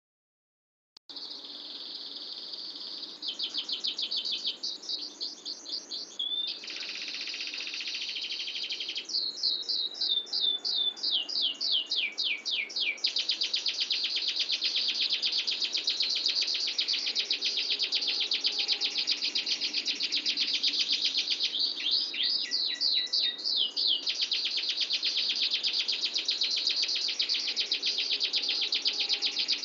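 Domestic canary singing a long, unbroken song of very fast rolling trills, broken twice by runs of quick downward-sweeping notes; it begins about a second in.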